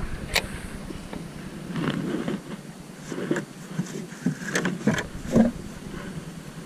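Scattered light knocks, clicks and scrapes of gear being handled in a small boat, over a low, even background of wind and water.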